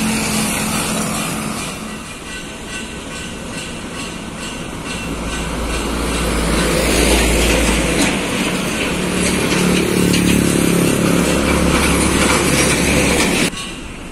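Road traffic passing close by: trucks, a minivan and motorcycles driving past with engine drone and tyre noise, louder in the second half as vehicles come close. The sound drops off abruptly near the end.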